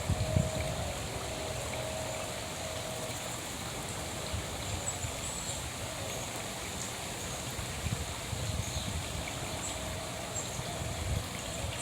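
Steady trickle of running water, with a few low bumps, the loudest about half a second in.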